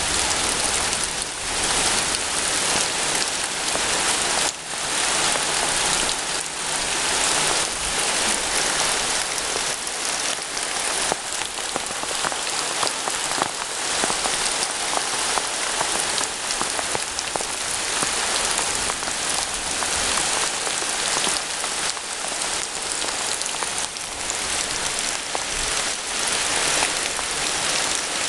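Steady rain falling, a dense even hiss made up of many individual drops hitting surfaces.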